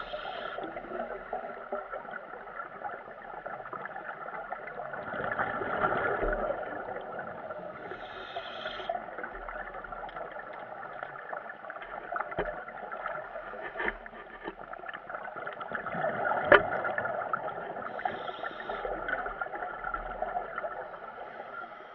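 Underwater noise heard through a submerged camera: a steady muffled water rush with scattered clicks. It swells louder about a quarter of the way in and again about three quarters in, with a sharp click during the second swell.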